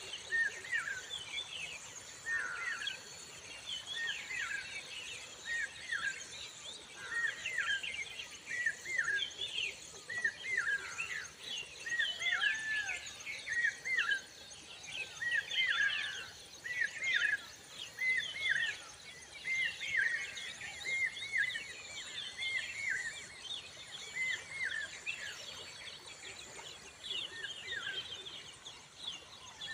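Many birds calling, a dense chorus of short, hooked chirps repeated again and again, over a faint steady high-pitched hum.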